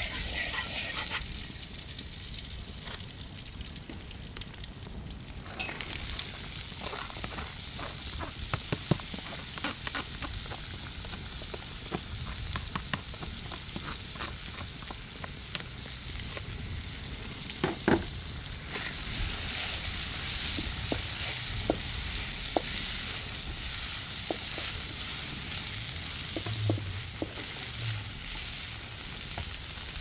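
Chopped green herbs frying in oil in a wok, sizzling steadily, with a wooden spatula scraping and knocking against the pan. Past the middle, peeled beans are poured in with a sharp knock, and the sizzle then grows louder as they fry.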